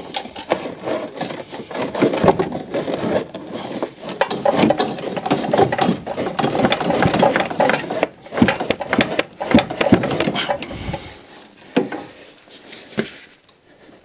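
Dense metallic clicking, knocking and scraping of hand tools and suspension parts as a car's front shock absorber strut is worked loose from its mounts. The sound thins out and grows quieter about eleven seconds in.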